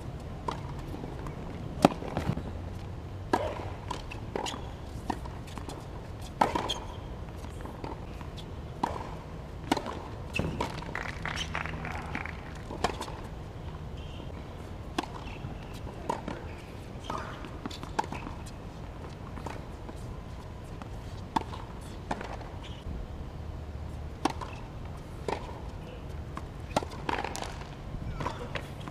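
Tennis balls struck by racquets and bouncing on a hard court during rallies: a series of sharp, irregularly spaced knocks, the loudest about two seconds in.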